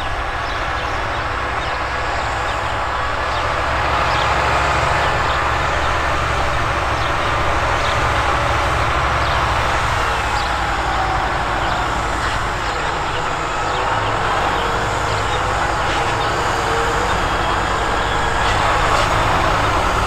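Claas Axion 960 tractor's six-cylinder diesel engine running steadily under heavy load while pulling an eight-furrow plough, with the rushing scrape of soil being turned over. It gets a little louder about four seconds in and again near the end.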